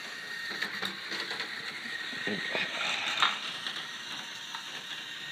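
Small motor of a toy train engine whirring steadily as it runs along plastic track, with light clicks and one louder knock about three seconds in.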